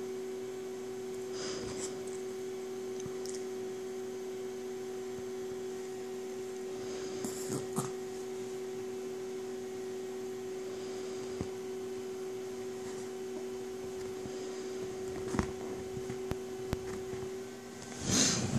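Steady electrical hum, a few plain tones held without change, with a few brief rustles; the loudest rustle comes near the end.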